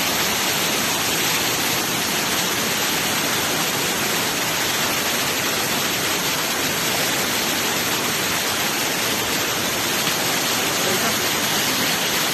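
Waterfall and river rapids rushing: a steady, unbroken hiss of falling water.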